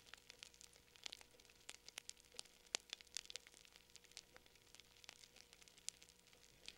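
Wood campfire crackling faintly, with irregular sharp pops and snaps.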